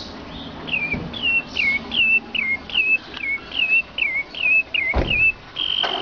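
A man whistling an imitation of a bird call: a run of about a dozen quick whistled notes, each dropping in pitch with a small upturn, about two a second. Near the end comes one long high whistle held and slowly falling. A single sharp knock sounds about five seconds in.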